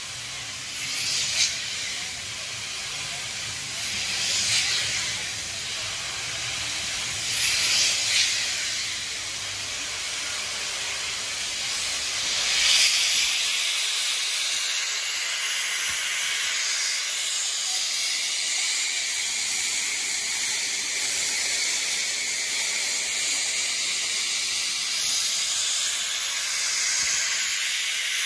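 Steam locomotive 5917 giving off a steady hiss of steam, with a few short, louder gusts of steam in the first half.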